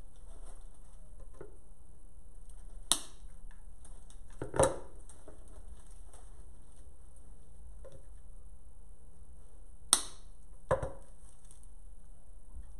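Artificial flower stems and hand tools being handled while a metal memorial vase is arranged: four short, sharp snaps and knocks in two pairs, about three seconds in and again about ten seconds in, over a steady low hum.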